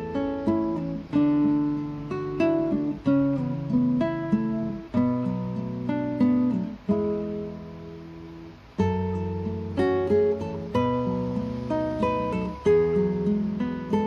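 Background music: an acoustic guitar playing plucked and strummed chords, a new chord struck about every second and left to ring.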